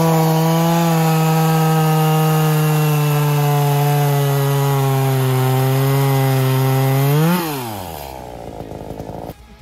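Chainsaw engine running at high speed, its pitch sagging slightly under load as it cuts wood. About seven seconds in it revs up sharply, then winds down and fades.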